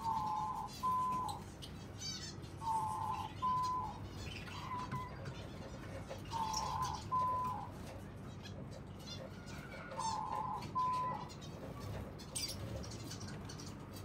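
Small aviary finches chirping, with a louder two-part call repeated four times, about every three and a half seconds.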